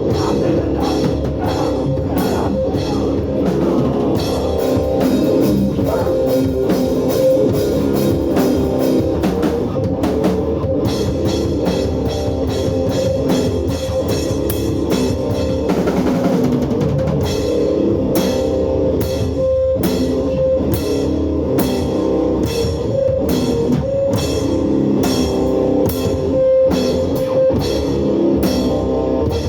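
Hardcore punk band playing live: loud distorted guitar and bass with fast, pounding drums.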